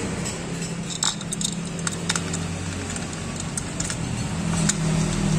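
Ignition coil packs being fitted onto a Mazda CX-3 engine by hand: scattered light plastic-and-metal clicks and rattles, over a steady low hum.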